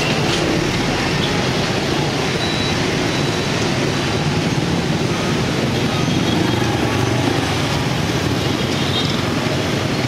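Dense motorbike and scooter traffic streaming across a railway level crossing: many small engines running together with tyre noise, a steady, fairly loud traffic sound.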